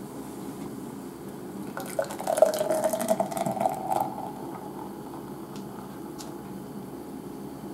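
A drink poured from an aluminium can into a stainless steel tumbler: liquid splashing into the metal cup, loudest for about two seconds starting about two seconds in.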